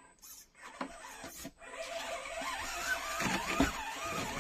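Mini RC crawler's small electric motor and gears whining, the pitch rising and falling as the throttle is worked, with scattered knocks as it climbs over rock. The whine comes in about two seconds in; before that there are only a few faint clicks.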